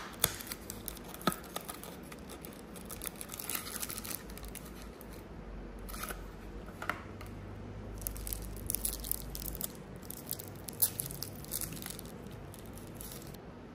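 Paperboard candy box opened and the cellophane wrapper around the candy sticks inside peeled and crinkled off. The sound is sharp clicks near the start, then several spells of fine crackling.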